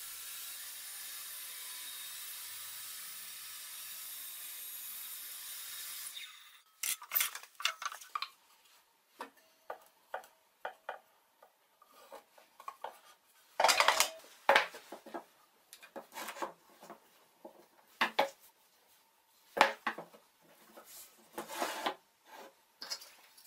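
A steady hiss that cuts off abruptly about six seconds in, followed by scattered knocks and clatter of plywood jig pieces being handled and set down on a wooden table.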